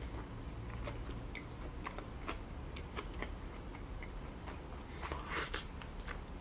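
A person chewing a mouthful of sushi roll, with small wet mouth clicks and smacks throughout and one louder, longer smack about five seconds in.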